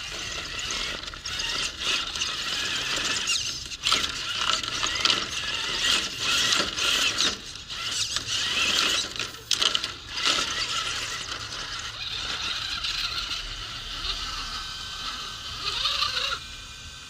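Radio-controlled crawler's electric motor and gearbox whirring as it drives, with frequent clicks and knocks, their loudness rising and falling unevenly.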